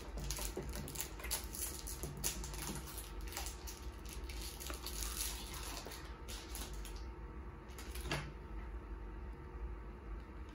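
Baseball trading cards being handled and flipped through by hand: a run of light rustles and flicks as the cards slide over one another, growing sparser about seven seconds in.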